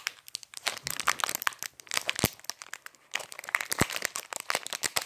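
Mail packaging crinkling and crackling in the hands as a cassette tape is worked out of it: a run of quick crackles with a quieter stretch a little past the middle and a couple of sharper clicks.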